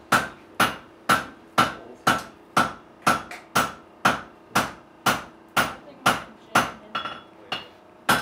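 Blacksmith's hand hammer striking red-hot steel on an anvil in a steady rhythm of about two blows a second, each blow ringing. A few lighter taps fall between the main blows.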